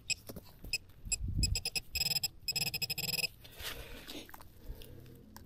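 Metal detecting pinpointer beeping in quick short pulses that run together into an almost continuous tone about two seconds in, the sign that it is right on a metal target buried in the clump of dirt. Soil crumbles and rustles in gloved hands underneath.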